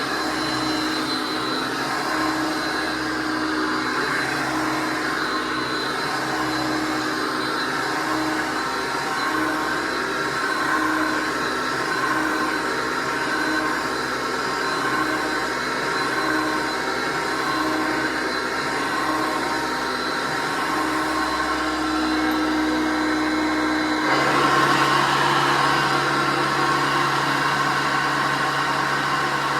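1979 Hoover Concept One U4205 upright vacuum cleaner running steadily. About three-quarters of the way through, its sound changes abruptly to a slightly louder, different-pitched hum.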